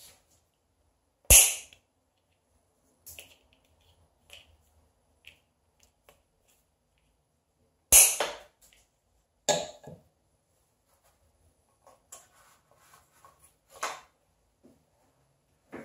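Pliers snipping stiff wire: two sharp snaps, about a second in and again about eight seconds in, with lighter clicks and taps of wire and tool in between.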